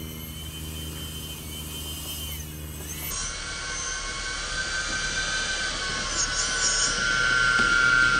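Twin 80mm electric ducted fans of a model A-10 jet whining steadily on the ground as it taxis. The whine jumps louder about three seconds in and keeps growing louder as the jet comes close.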